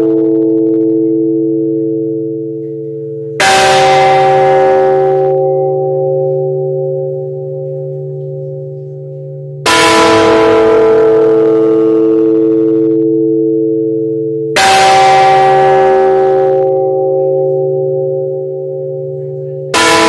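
Church bells tolling a death knell for a woman: four slow single strokes about five seconds apart, alternating between two bells of different pitch. Each stroke hums on and fades until the next.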